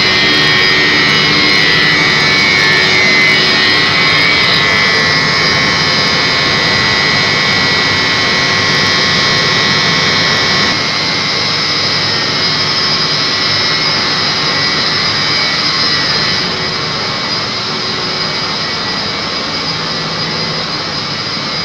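Large electric pump motors in a chiller plant room running: a loud, steady roar with high steady whining tones over it. The noise drops a step about eleven seconds in and again about sixteen seconds in.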